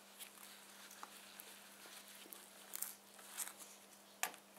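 Faint handling noises as a hot metal tin is handled through a towel: a few soft rustles and light clicks over a steady low hum.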